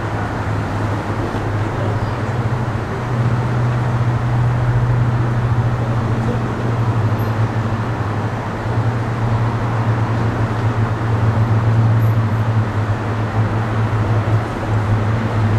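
Diesel locomotive engine running steadily, a low, even hum, slightly louder from about three seconds in; most likely a Class 55 Deltic.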